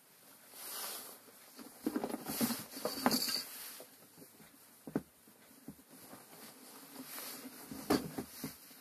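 Handling noise at a workbench: cloth rustling and scraping, with a few light sharp clicks, the loudest about 3 and 8 seconds in.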